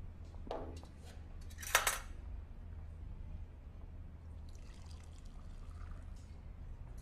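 Glassware handled on a counter: a knock, then one loud sharp clink of glass about two seconds in, followed by a faint trickle of liquid being poured. A low steady hum runs underneath.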